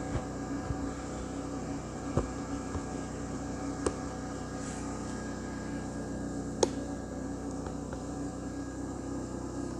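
Steady mechanical hum with a few sharp clicks, about three over several seconds.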